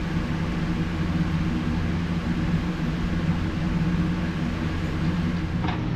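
Steady mechanical hum of a running machine: a low drone with an even hiss above it, unchanging throughout.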